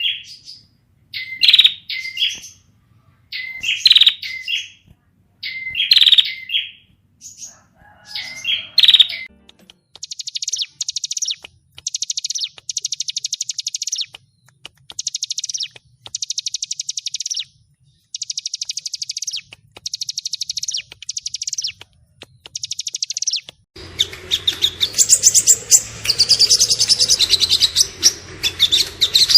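Recorded songs of small songbirds: short high phrases repeated about every two seconds, then from about ten seconds in fast rattling trills in bursts of a second or two, the rapid 'tembakan' style used to train shamas. Near the end a denser chatter of calls sets in over a low steady hum.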